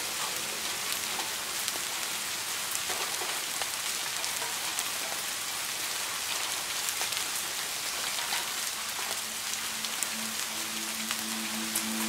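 Steady rain falling, an even hiss dotted with many small drop ticks. Soft sustained music tones come in underneath about ten seconds in.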